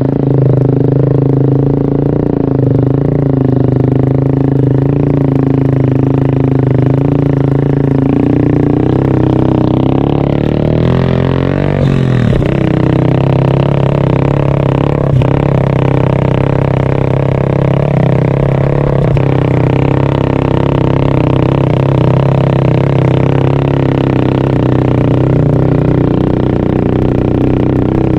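Motorcycle engine running steadily under way while carrying riders, with a brief shift in engine pitch near the middle.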